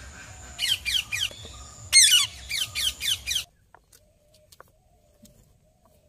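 Indian ringneck parrot giving a rapid string of short, shrill squawks, each falling in pitch. They stop abruptly about halfway through, leaving near quiet with a few faint clicks.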